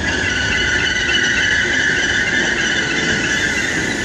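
Train wheels squealing on curved track and pointwork: a steady high-pitched squeal that fades near the end, over the low rumble of the train running.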